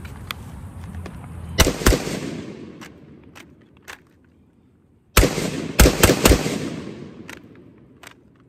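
Palmetto State Armory AR-15 rifle firing semi-automatic with its magazine rested on the ground as a monopod: two shots in quick succession, then about three seconds later a quick string of three or four more, each report followed by a fading echo.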